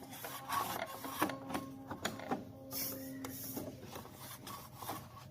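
Singer Quantum Stylist 9960 computerized sewing machine running, a steady motor whir with mechanical clicking, stopping about three and a half seconds in.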